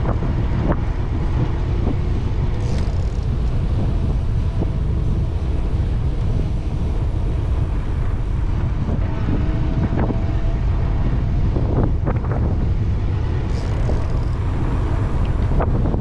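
Wind buffeting the microphone of a camera on a moving bicycle, a steady low rumble with road noise, broken by a few short knocks and rattles from the bike over the road surface.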